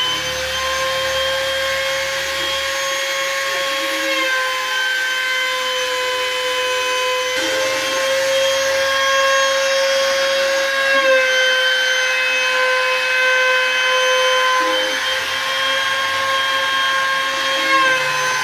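CNC router spindle carving wood: a steady high-pitched whine over cutting noise, its pitch shifting slightly every few seconds.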